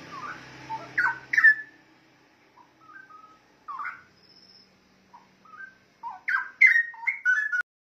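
Straw-headed bulbul (cucak rowo) singing rich, liquid whistled phrases that slide up and down in pitch. There is a loud burst about a second in, softer scattered notes after it, then a second loud run of notes near the end that cuts off suddenly.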